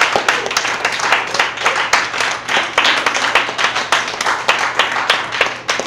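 Audience applauding: many people clapping at once, dense and steady.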